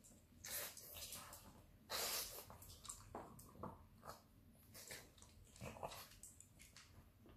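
Pug sniffing and snorting at a plastic dog puzzle feeder: a string of short, irregular snuffles, the loudest about two seconds in.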